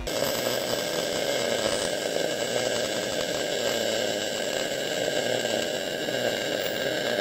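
Steady crackling hiss of a MIG welding arc laying a bead.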